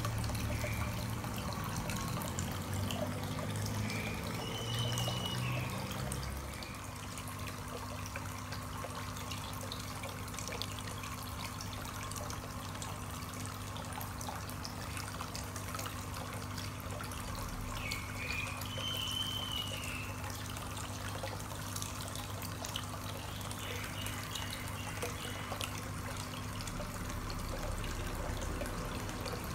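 Water trickling steadily into a small goldfish pond, with a low steady hum underneath that settles in about six seconds in. Two brief high chirps come through, once early and once past the middle.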